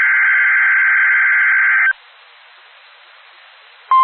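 Weather radio Emergency Alert System broadcast: the shrill two-tone buzzing of a SAME digital header data burst, which cuts off about two seconds in, then faint radio hiss, then the steady 1050 Hz warning alarm tone starting right at the end.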